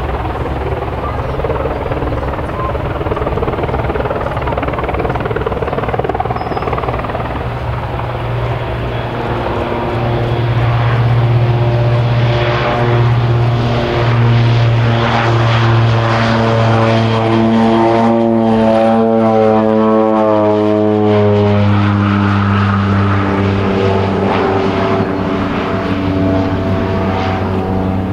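de Havilland Canada DHC-6-400 Twin Otter on amphibious floats flying a low pass, its two PT6A turboprops and propellers droning. The drone grows louder about ten seconds in, and the propeller tone drops in pitch around twenty seconds in as the aircraft passes and climbs away.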